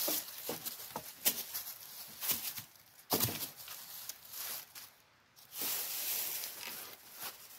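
Irregular sharp snaps and knocks of twigs being cut from a thin wooden pole with a curved pruning saw, over the rustle of dry leaf litter. The loudest snap comes about three seconds in, and a longer stretch of leaf rustling follows near the end.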